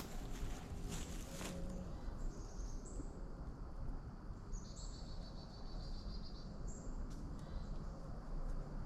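Woodland ambience: a songbird calling in short high whistled notes, with a fast trill in the middle, over a steady low background hum. A few short crunching steps come in the first second or so.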